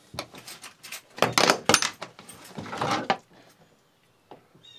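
Wrench turning a nut off a chain plate bolt: rapid clicking and metal rattling in two spells, the second shorter, as the nut is worked loose and comes off.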